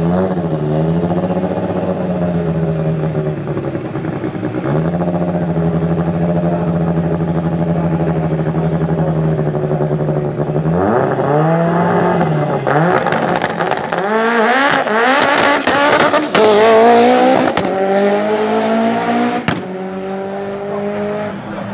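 A high-powered turbocharged drag-racing car idles steadily at the start line, then is revved in sharp blips about eleven seconds in. It launches hard, its engine pitch climbing and dropping through several gear changes, loudest near the end of the run. After a sudden cut, the engine is heard at a lower, steady pitch.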